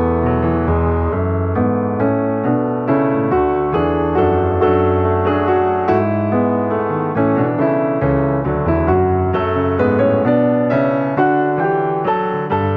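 Piano music: a steady run of sustained notes and chords, with no fireworks bangs audible.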